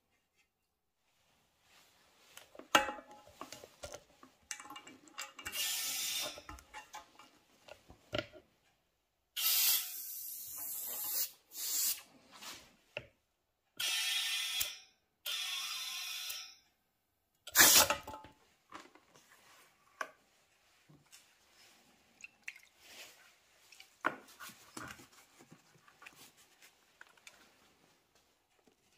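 Compressed air hissing in several long bursts from a tyre-inflator gun with a pressure gauge, pressurising a blanked-off exhaust pipe for a leak test, with a short sharp burst of air near the middle. Clicks and knocks of tools and metal parts being handled come before and after.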